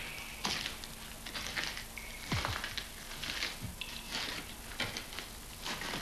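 Slow footsteps on a stony cave floor: irregular scuffs and clicks, a couple a second, with a faint steady hum underneath.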